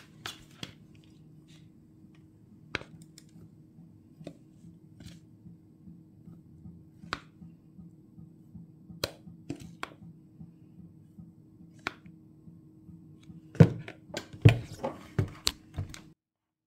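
Kitchen handling sounds over a faint steady low hum: scattered light clicks and taps of bowl and utensils while flour is added to cake batter. Near the end come several louder knocks as the electric hand mixer's beaters are set down into the bowl.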